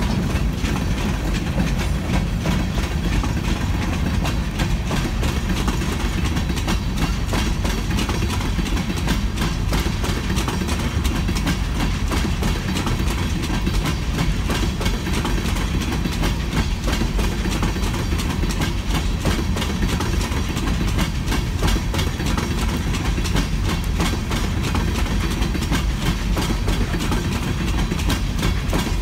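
Freight train of coal hoppers and coal gondolas rolling past close by: a steady heavy rumble of wheels and trucks on the rails, with continual clicking as the wheels cross rail joints.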